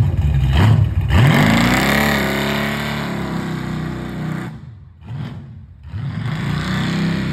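1989 box Chevy's engine revving through its newly installed muffler and exhaust. A long rev climbs in pitch and slowly falls away, there is a short blip about five seconds in, then another rev near the end.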